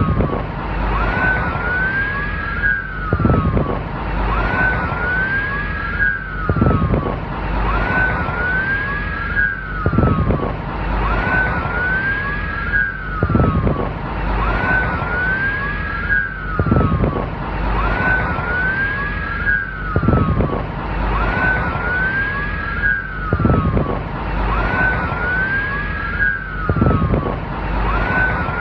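Police car siren wailing in quick rising-then-falling sweeps that repeat in a regular cycle about every three and a half seconds, over a steady rush of road noise.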